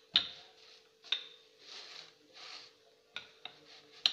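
Wooden rolling pin rolled over butter paper on a sticky chikki mixture: soft rustling and rubbing of the paper in slow strokes, with a few sharp clicks and knocks as the pin and paper shift.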